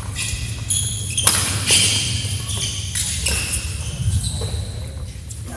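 Badminton rally: rackets striking the shuttlecock with sharp pocks several times, amid short high squeaks of players' shoes on the court floor, over a steady low hum in the hall.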